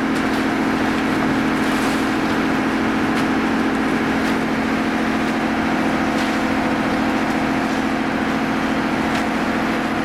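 An engine running steadily, a low even drone, with faint scrapes and clicks over it.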